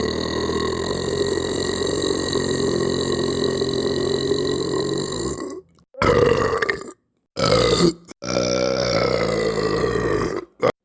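A person belching. One long, drawn-out belch ends about five and a half seconds in, then three more follow with brief pauses between them, the third one long.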